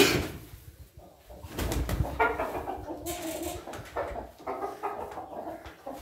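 A sharp knock at the start and a low handling rumble, then a run of short pitched calls from farm animals in a goat pen.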